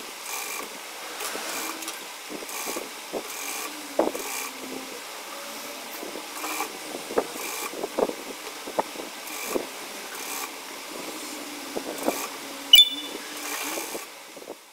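Table-mounted sewing machine running as fabric is fed under the presser foot, with fabric rustling and irregular small ticks. A single sharp click comes near the end.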